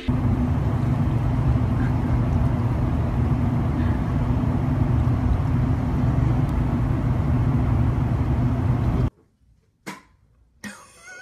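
Steady low rumble of a motor vehicle's engine running, with a faint steady hum. It cuts off suddenly about nine seconds in, leaving only a few faint taps.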